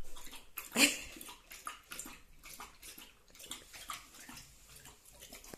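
A beagle lapping water from a steel bowl: a quick run of wet laps with small clinks against the metal, and one louder clank about a second in.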